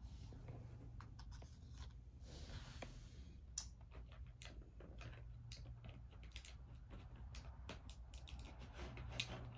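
Faint clicks and taps of plastic board-game miniatures being handled and set down on a table, irregular and spread throughout, with a brief rustle about two seconds in.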